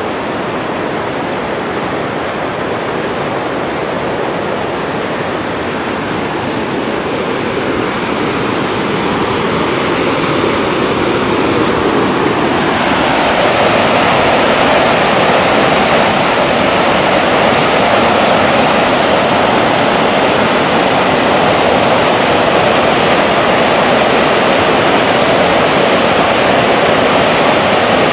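Whitewater rapids of the Suwannee River at Big Shoals rushing, a steady noise that swells about halfway through and then holds.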